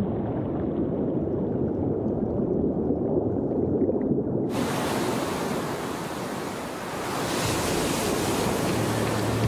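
Muffled underwater rumble of churning surf, which cuts off abruptly about four and a half seconds in to the open hiss of ocean waves at the surface. A low steady hum starts near the end.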